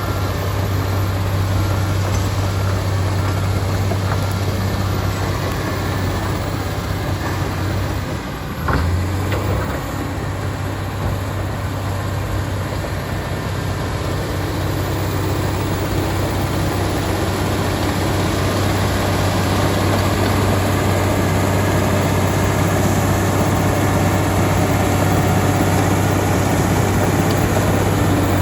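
Komatsu D85EX bulldozer's diesel engine running steadily with a deep hum, dipping briefly about eight seconds in.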